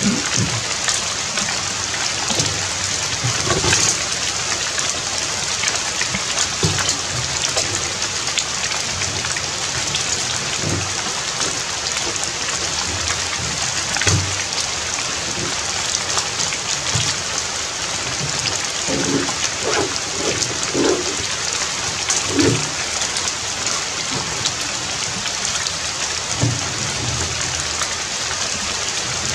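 Steady rain falling, a dense continuous hiss of drops, with a few short low sounds about two-thirds of the way through.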